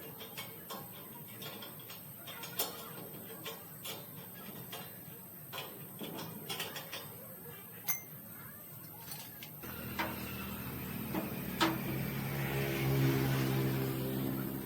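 Small metal parts clinking and tapping for several seconds. About ten seconds in, a small electric motor starts and hums steadily, growing somewhat louder.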